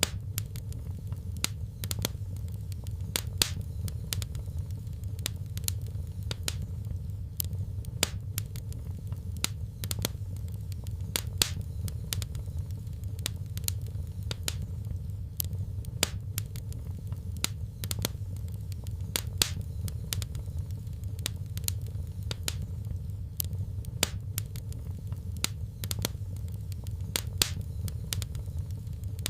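Fire in a fireplace crackling: irregular sharp pops and snaps, a few a second, over a steady low rumble.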